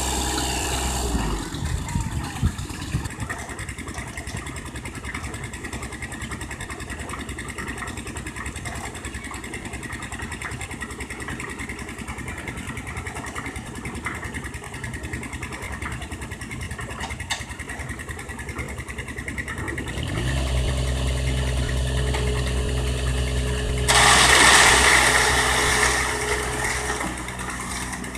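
Construction machine engine running. About 20 s in a deeper engine note comes in with a short rising pitch, like the engine being started or revved. About 24 s in a loud rushing noise sounds for about three seconds over the running engine.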